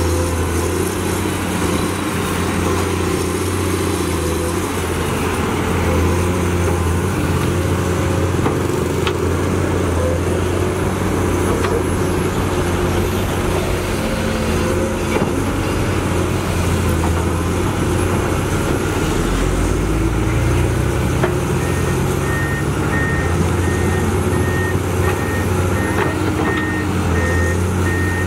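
Komatsu PC210 hydraulic excavator's diesel engine running steadily under digging load, with a steady low hum. A high beep repeats about once a second through the last several seconds.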